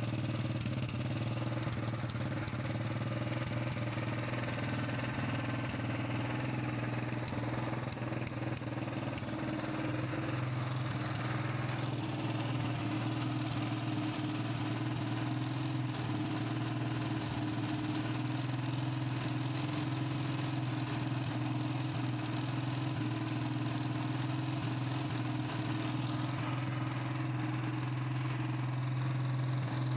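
Honda CG-125's single-cylinder four-stroke engine idling steadily. It has a light tappet tick because the valve clearances were deliberately left loose on the freshly rebuilt engine with its new piston.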